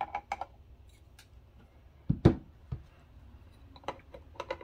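Hard plastic clicks and taps as a 3D-printed bracket is handled against the case of an Icom IC-705 radio, with one louder knock about two seconds in.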